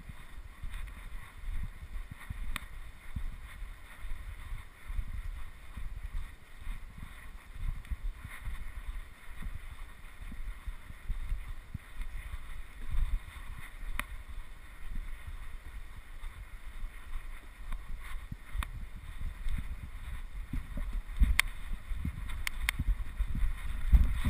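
Wind rumbling and buffeting on the microphone, with a handful of faint sharp clicks scattered through, a few of them close together near the end.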